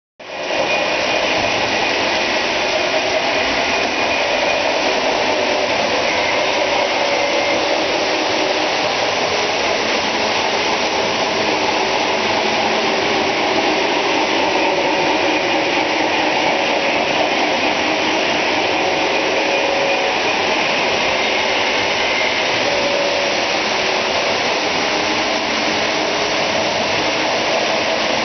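Several Lionel O-gauge model trains running at once, a steady mechanical whir and rumble of electric motors and wheels on three-rail track.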